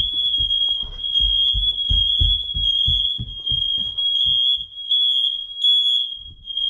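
Smoke alarm sounding a continuous high-pitched tone, set off by aerosol test smoke spray, with a run of low thumps under it for the first few seconds.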